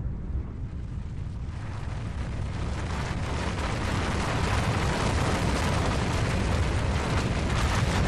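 Snow avalanche coming down a mountainside: a deep, steady rumble, joined about a second and a half in by a rushing hiss that slowly builds.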